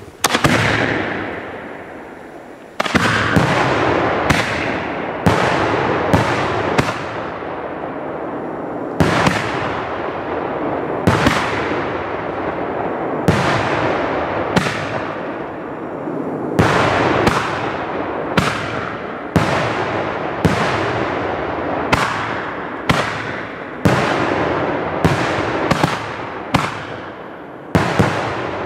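Fireworks going off in quick succession: about two dozen sharp bangs, roughly one a second after a single opening bang and a short lull, each trailing off in a long fading hiss.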